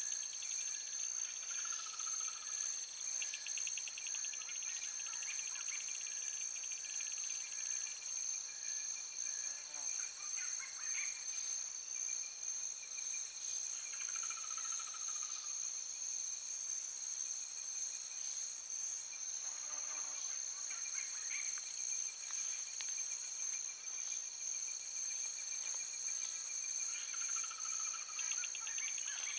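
Steady, high-pitched chorus of insects, with a few short bird calls now and then.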